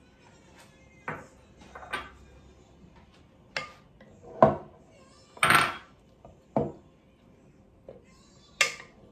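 A utensil knocking and scraping against a bowl in about seven separate strokes as potatoes are gently tossed in melted butter.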